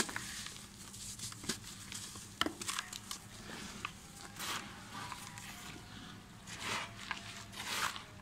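Dry red dirt blocks crumbled by hand, giving sharp gritty crackles. In the second half, a few short, soft hisses as powdery dirt pours through the fingers into a plastic tub.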